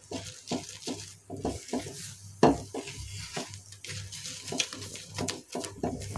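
Wooden spatula scraping and knocking against a nonstick pan as a thick milk-powder and coconut paste is stirred, in quick irregular strokes. The loudest knock comes about two and a half seconds in.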